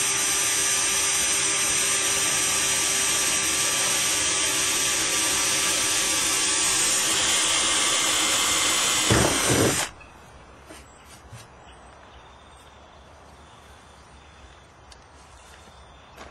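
Power drill boring the first bolt hole through a kayak's deck, running steadily, then stopping about ten seconds in.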